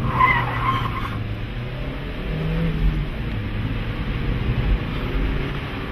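Car engine pulling as the vehicle speeds away, its pitch shifting up and down, with wind and road noise through an open window. A short higher-pitched sound comes in the first second.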